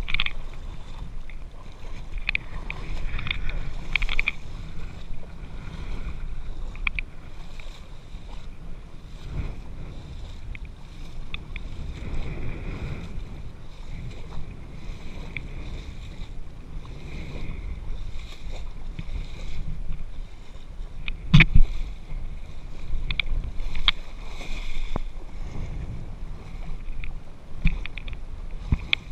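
Water sloshing and lapping against a GoPro riding at the water's surface, with wind rumble on the microphone. A few sharp knocks cut through, the loudest about 21 seconds in.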